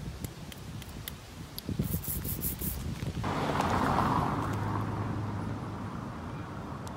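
A car passing on the street: a rush of tyre and engine noise starts suddenly about three seconds in, swells and then slowly fades. Before it, a few light clicks and taps.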